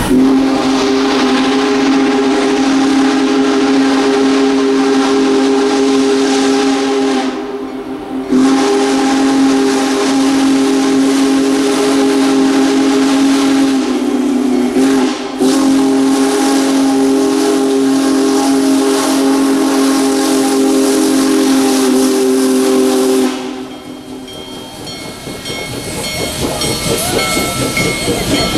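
Union Pacific Big Boy No. 4014's steam whistle blown in three long blasts, each a chord of several tones at once. There are short breaks about 7 and 15 seconds in, and the whistle stops about 23 seconds in, leaving the noise of the passing train.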